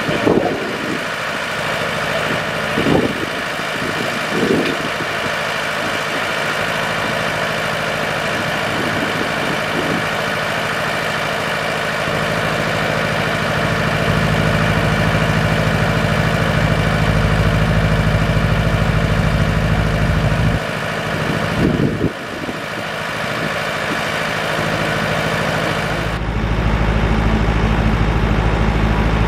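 Steady hiss of steam escaping from a small narrow-gauge steam locomotive standing in steam, with a diesel engine running alongside that grows louder about halfway through and again near the end. A few knocks in the first few seconds.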